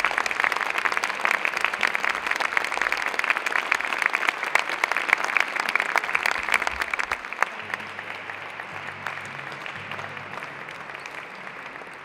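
Audience applauding, the applause dying away gradually over the last few seconds.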